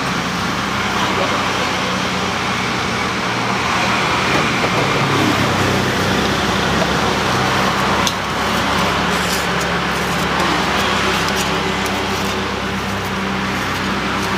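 Steady road traffic running past, with vehicle engines humming.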